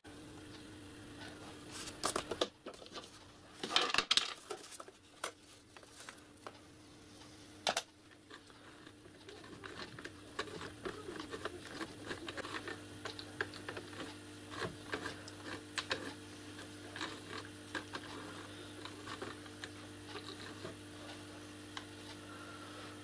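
Small steel and brass lathe parts clicking and clanking as hands work a miniature lathe's carriage, handwheel handle and levers, with a few louder knocks in the first eight seconds and lighter ticks after. A steady low hum runs underneath.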